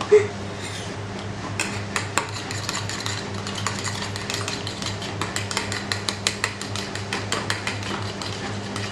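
Raw eggs being beaten in a bowl with an eating utensil: quick, irregular clinks of metal against the bowl that come faster after the first second or so, with one sharper knock right at the start. A steady low hum runs underneath.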